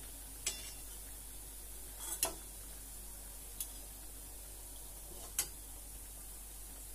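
A few light clicks of a steel wire skimmer and slotted spoon knocking against a steel kadhai, spaced a second or two apart, over a faint steady hiss from the pan of frying oil as the fried dal batti drain.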